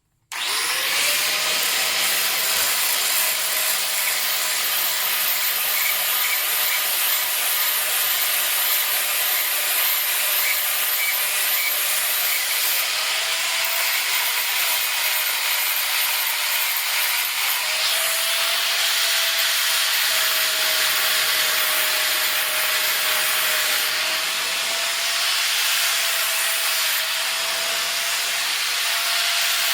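Power grinder running and grinding chamfers into the steel edges of an anvil: a steady, harsh grinding hiss over the motor's whine. The whine rises as it spins up at the start and sags a little now and then as the wheel is pressed into the metal.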